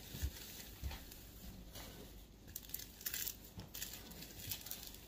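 Bubble-wrap packaging being unwrapped by hand: faint, irregular crinkling and rustling, with a couple of soft knocks near the start.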